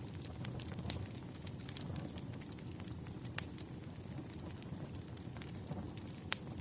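Wood fire burning: a steady low rumble of flames with irregular sharp crackles and pops from the burning logs, the loudest pops about a second in, about three and a half seconds in and near the end.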